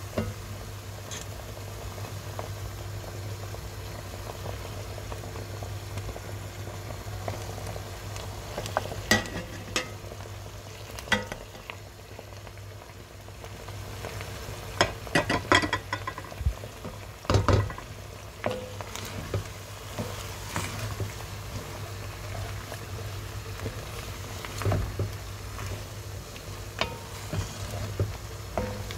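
Chickpeas and potato cubes frying in oil in a pot, stirred with a wooden spoon. The spoon knocks and scrapes against the pot now and then, most often around the middle, over a steady low hum.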